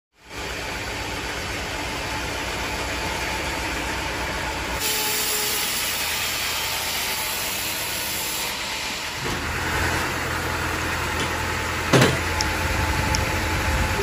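An engine running steadily, with a sharp knock about twelve seconds in. The sound changes abruptly twice, at about five and at about nine seconds.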